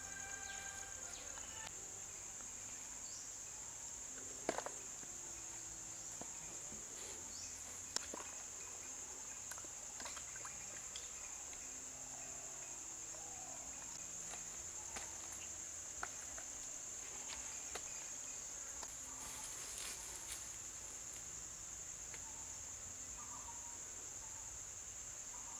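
Insects shrilling steadily at one high pitch, with a few scattered sharp knocks, the loudest about four seconds in and again about eight seconds in.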